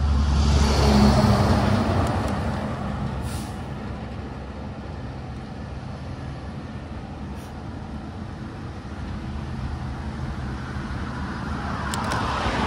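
A heavy truck overtaking close by, its engine rumbling with tyre noise, loudest about a second in and fading as it pulls ahead. Then steady road noise, swelling again near the end as another vehicle comes past.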